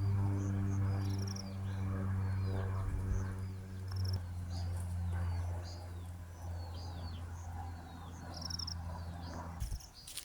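A low, steady drone with a stack of overtones, fading out near the end, under small birds giving short, high, down-slurred chirps again and again.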